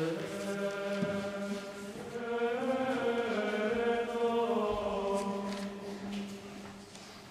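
A group of voices singing a slow chant in long held notes, the phrase dying away near the end.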